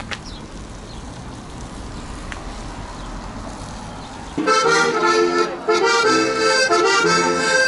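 A low steady outdoor rumble, then about four and a half seconds in loud accordion music cuts in, playing a traditional folk tune with changing chord-like notes.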